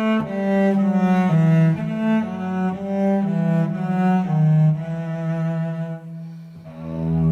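Instrumental music: a melody of separate low, rich pitched notes changing a few times a second, with a dip and then a long held low note near the end.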